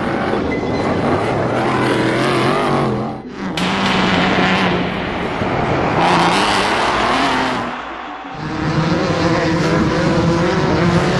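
Off-road race vehicle engines running hard and revving, their pitch wavering up and down. The sound breaks off abruptly about three seconds in and dips briefly near eight seconds.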